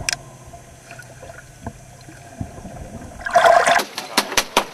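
Underwater sound: a steady low hum with faint scattered clicks and a wash of water. About three and a half seconds in, a loud rush of water comes, followed by quick regular clicks, about five a second.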